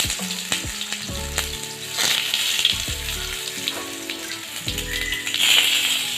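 Boiled potato slices sizzling and crackling in hot oil in a frying pan, a steady hiss with scattered pops, under background music with held notes.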